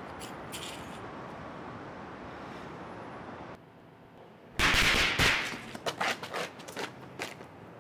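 Firecrackers going off: one loud bang followed by a rapid, uneven run of sharper cracks that dies away over about two seconds.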